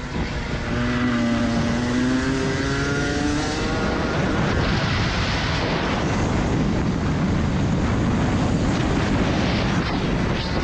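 Rotax Max Senior 125 single-cylinder two-stroke kart engine accelerating out of a corner, its pitch rising steadily over the first few seconds. It then runs near full revs under heavy wind rush on the onboard microphone.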